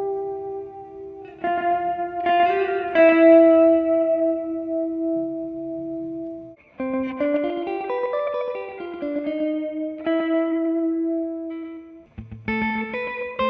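1973 Fender Jazzmaster electric guitar played through a Swart AST Pro amp with echo for a surf sound. It plays a slow single-note melody with long held notes, breaking off briefly twice.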